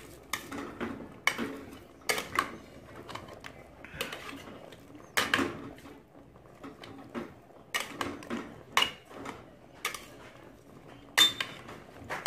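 A metal cooking pot clattering and knocking as cassava chunks and greens are handled into it. Irregular sharp knocks come about once a second, the loudest near the end.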